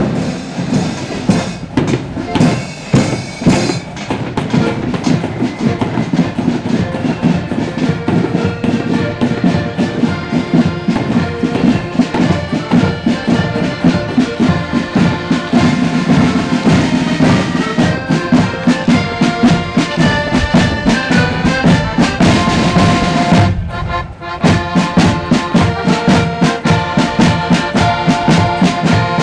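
Marching band playing a tune, the melody instruments held over side drums and a bass drum beating a steady march rhythm. The music drops out briefly about two-thirds of the way through, then resumes.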